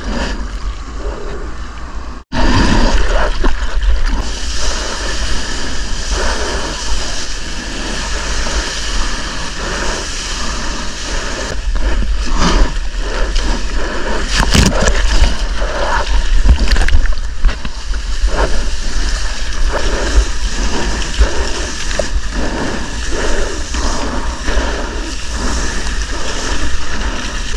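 Sea water splashing and rushing around a surfboard as it is paddled and ridden through waves, with a heavy low rumble of water and wind on the camera's microphone. The sound cuts out for an instant about two seconds in.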